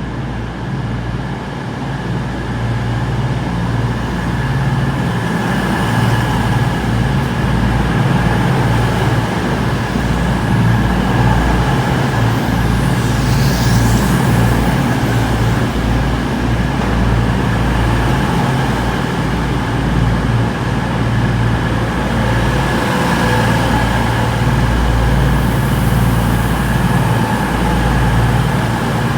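A train running at a station platform: a steady, loud low rumble that builds over the first few seconds, with a brief high-pitched sound about 13 seconds in.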